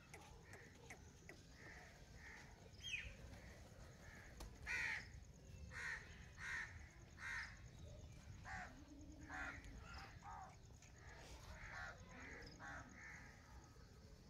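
Crows cawing, a run of short repeated caws coming about once a second from about a third of the way in.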